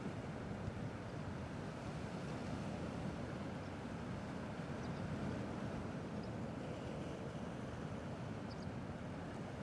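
Gentle sea waves washing in a steady, low, even rumble, with no single wave standing out.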